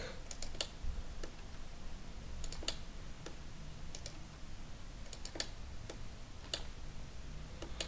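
Irregular clicks of a computer mouse and keyboard, a dozen or so, some in quick pairs, over a faint low hum.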